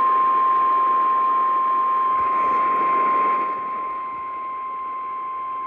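NOAA Weather Radio 1050 Hz warning alarm tone: one steady high-pitched tone held over radio static hiss, which drops in loudness about three and a half seconds in. The tone signals that a warning message is about to be broadcast.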